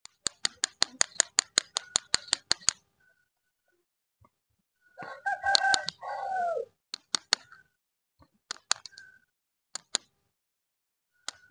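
A quick run of sharp clicks, about five a second, lasting under three seconds. Then a rooster crows once for about a second and a half, its call falling at the end, and a few scattered clicks follow.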